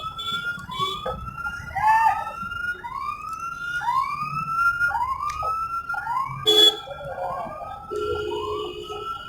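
Electronic siren: a wailing tone that rises steeply and levels off, repeated about once a second. There is a sharp click about six and a half seconds in.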